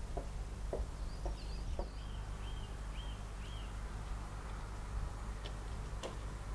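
Small bird chirping: a brief high twitter, then four quick chirps in a row, over a steady low hum. Soft ticks come about twice a second in the first two seconds, and there is a single sharp click near the end.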